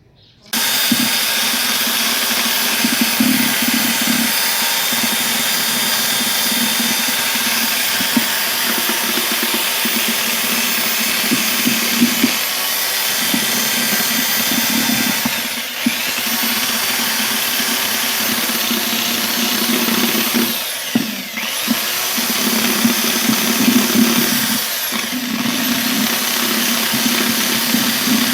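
Electric power tool, drill-like, running continuously, its motor pitch sagging and recovering three times as it bites under load. This fits cutting a new hole in the subwoofer box to take a second speaker.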